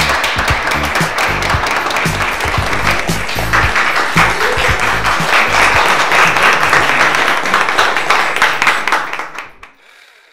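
A crowd applauding over background music with a steady beat; both fade out near the end.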